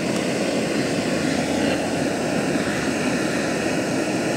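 Handheld gas torch burner running steadily at full flame, played on a block of smoking wood to set it alight.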